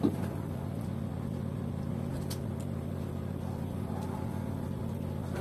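Corded electric hair clipper running with a steady low buzz.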